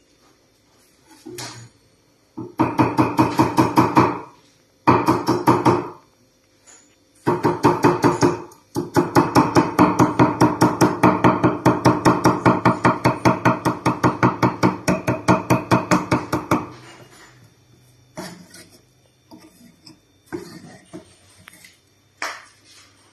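Cleaver chopping and mincing garlic on a thick round wooden chopping board: rapid, even chops about five a second, in four runs with short pauses, the last lasting about eight seconds. Near the end only a few scattered single knocks.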